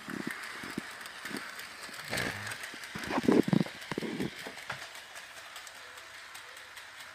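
Bachmann HO-scale Thomas model locomotive running on its track, pulling three small trucks: a steady faint motor whir with light clicking of the wheels. A few louder knocks come between about two and four and a half seconds in.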